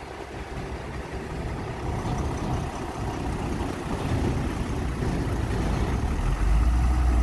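Heavy diesel engine running and growing steadily louder, with a deep, steady rumble coming in near the end.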